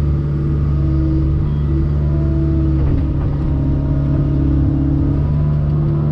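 Heavy equipment's diesel engine running steadily, a deep even drone with a higher tone that comes and goes.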